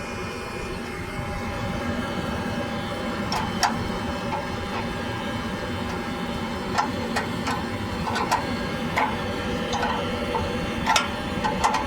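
Homemade waste-oil furnace running: a steady rush and hum from its 12-volt blower and burner, with about a dozen irregular sharp ticks and pops from about three seconds in.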